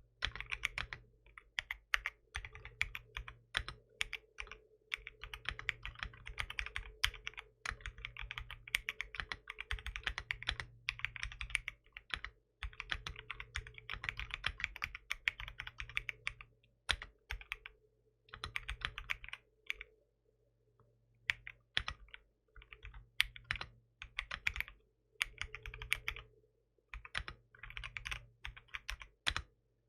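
Typing on a 75% aluminium mechanical keyboard with tactile switches: runs of fast keystrokes broken by short pauses, the longest about two-thirds of the way through.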